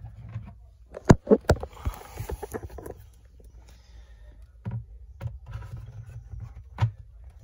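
Hard plastic CGC comic slab being handled and turned over on a tabletop: a quick run of sharp clicks and knocks about a second in, a short rustle, then a few single taps later on.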